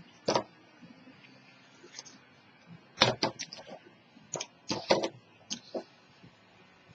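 A paper strip and chipboard being handled and pressed down by hand on a cutting mat. There is one sharp tap near the start, then a cluster of short crackles and taps about three to five seconds in.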